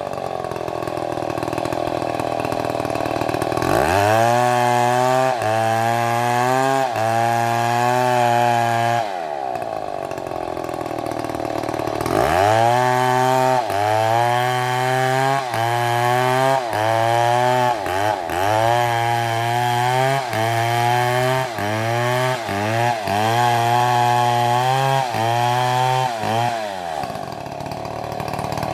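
Chainsaw engine running at high revs and cutting wood, its pitch sagging and recovering about once a second as the chain loads in the cut, with two smoother stretches between cuts. Near the end the engine drops off the throttle.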